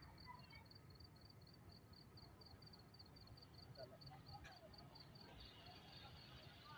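Near silence: an insect chirping in a steady, high run of quick pulses over a faint low background rumble.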